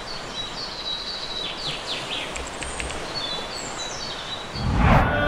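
Surf washing on a beach, a steady hiss, with birds chirping over it. Near the end a loud low whoosh swells up.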